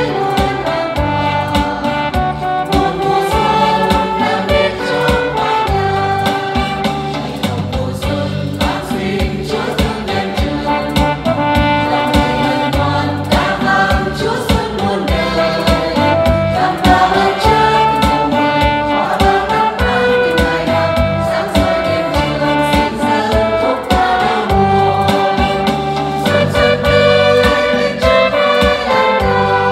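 A small choir singing a Vietnamese hymn in parts, with sustained keyboard accompaniment underneath.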